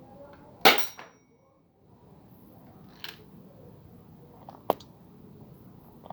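Spring airsoft Colt M1911 pistol firing a 6 mm BB: one loud, sharp snap about a second in that fades quickly, followed by two lighter mechanical clicks a few seconds later.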